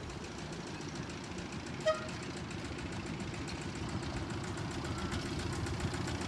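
Small engine of a miniature railway locomotive running steadily with a fast, even chug, slowly growing louder as the passenger train approaches. A short, high squeak cuts in briefly about two seconds in.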